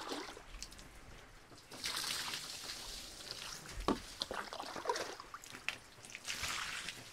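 Water splashing and sloshing as a plastic bucket is dipped into a rainwater barrel and filled, with a sharp knock of the bucket about four seconds in.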